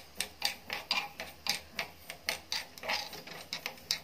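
Metal spoon stirring mustard seeds as they dry-roast in a small pan, the seeds rattling and scraping against the pan in short strokes about four times a second.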